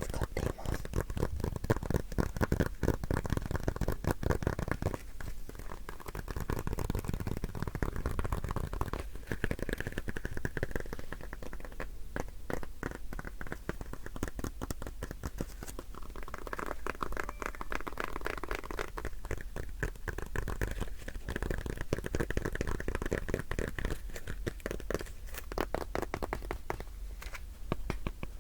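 Dense, continuous crackling and scratching of an everyday object handled and rubbed close to the microphone, loudest in the first few seconds with brief lulls.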